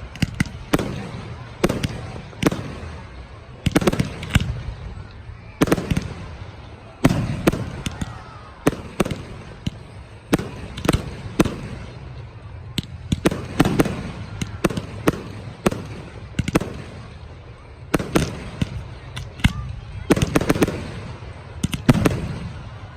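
Fireworks display: aerial shells bursting in a rapid, irregular run of sharp bangs, several close together at times, each trailing off in a low rumbling echo.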